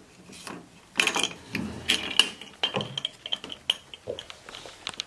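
Metal hook-and-eye latch on a wooden cage door being unhooked and the wooden door swung open: a quick, irregular run of light clicks, clinks and wooden knocks.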